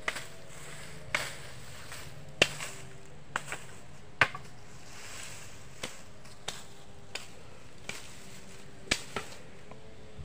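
Machete blade chopping into branches: about eleven sharp blows at an uneven pace, roughly one every second or less, the hardest two coming about two and a half and four seconds in.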